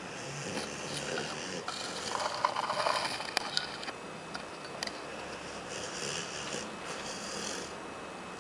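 A sleeping pet snoring: a few long, noisy breaths, the loudest about two to three seconds in, with the last one ending near the end.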